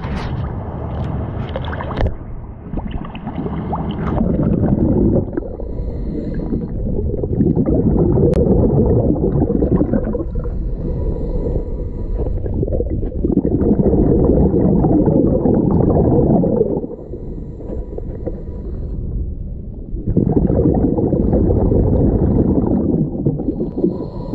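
A diver's exhaled air bubbling from the regulator, heard underwater at the camera: three long bubbling rumbles several seconds apart, with quieter gaps between. There are a few splashes near the start as the camera goes under.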